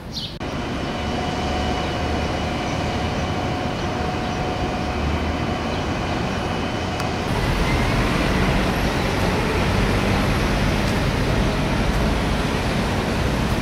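Steady vehicle noise of a city, with a faint held whine over it in the first half. About seven seconds in the sound changes abruptly to a louder, deeper noise.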